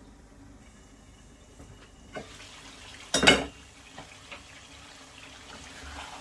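Cookware in use: one loud knock of metal on a pan about halfway through, with a fainter click just before it, over a faint steady hiss that grows toward the end.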